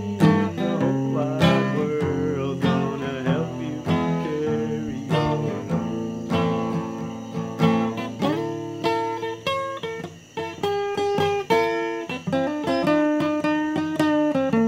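Acoustic guitar being played, with plucked notes and strummed chords running through.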